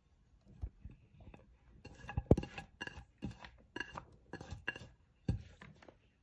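Kitchen dishes clinking: a bowl and dish knocking together in a run of about a dozen light knocks, each with a brief ringing tone, the loudest a little past two seconds in.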